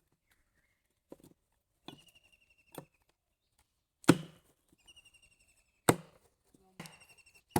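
Hard chopping strokes of a blade into a tree trunk, about seven uneven blows with the heaviest around the middle. A rapid, high chirping trill sounds between some of the strokes.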